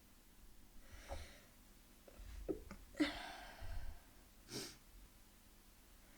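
A person sneezing: a faint breathy intake about a second in, a loud sneeze about three seconds in, and a second, shorter sharp sneeze a moment later.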